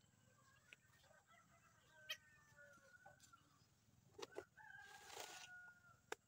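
Faint farmyard chickens, with a rooster crowing once or twice in the background. A few scattered small knocks and a brief hiss about five seconds in.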